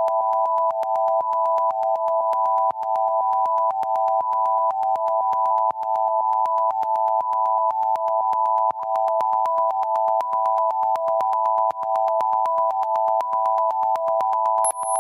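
Pure sine-wave tones from a Max/MSP patch of several oscillators, playing a live electronic piece. Several steady tones between about 600 Hz and 1 kHz switch on and off in an interlocking pulse, with a sharp click at each switch and a cycle that repeats about every three seconds. A high, thin tone comes in near the end.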